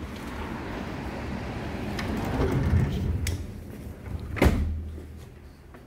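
Sliding glass balcony door rolling along its track and shutting with a sharp knock about four and a half seconds in. The steady outside noise drops away once it is closed.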